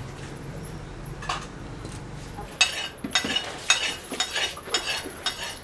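A kitchen knife at work: a single knock about a second in, then a quick irregular run of sharp clicks and taps from about two and a half seconds in, over a low hum.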